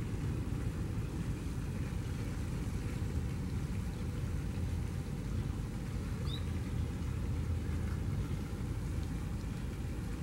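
Low, steady rumble of a Union Pacific SD70AH diesel locomotive approaching under power at the head of an intermodal train. A brief high chirp sounds about six seconds in.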